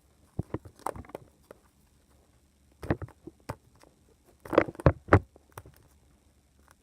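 Hands struggling to open a small plastic egg bound with duct tape: scattered clicks, scrapes and crinkles of plastic and tape, with a cluster of louder knocks about four and a half to five seconds in.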